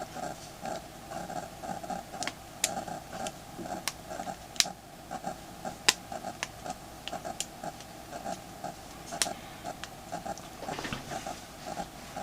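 Sharp plastic clicks and snaps as a smartphone's plastic back frame is pressed down onto the phone, several scattered through, over a steady pulsing hum about three times a second.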